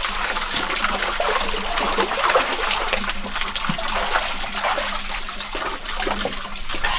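Water splashing and trickling in a small pool as people wade through it and climb out, with a steady stream of water spilling in from a fountain spout.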